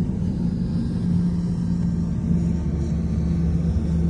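Motorboat engine running steadily: a constant low hum with a rumble beneath.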